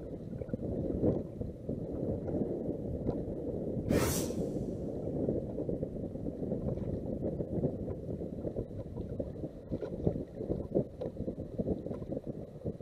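Wind buffeting the microphone on an open bass boat, a low, fluttering rumble, with a brief loud hiss about four seconds in.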